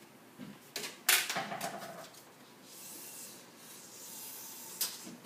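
A tape measure handled against a door: a few sharp clicks and taps in the first second or so, then a soft rubbing hiss for about two seconds, and another click near the end.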